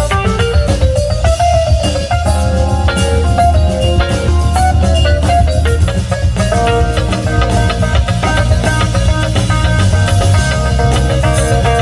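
Band playing an instrumental number. A lead line bends and slides over a strong bass line and steady drum-kit beats.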